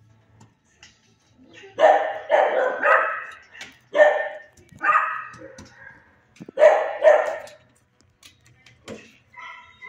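A dog barking, about seven loud barks in short groups between about two and seven seconds in.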